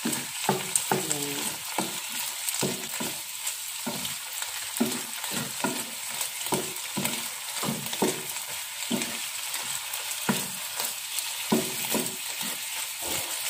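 Diced pork belly sizzling in its own fat in a nonstick frying pan, a wooden spatula scraping and stirring it in a few short strokes a second over a steady hiss. The pork is being fried to render out its fat.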